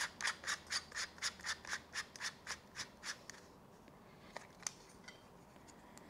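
Plastic mesh guard of a Philips GC026/80 fabric shaver being screwed back onto its body by hand: a quick run of soft, scratchy rasps, about four a second, that stops about three seconds in, followed by two faint clicks.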